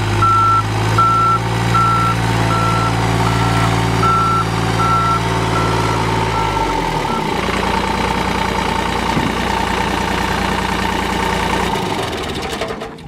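Air-cooled Deutz diesel engine of a Ditch Witch 1025 backhoe running steadily, with a high electronic beeper sounding about twice a second over it. Both the beeper and the engine's pitch drop away about halfway through, and the engine dies down near the end.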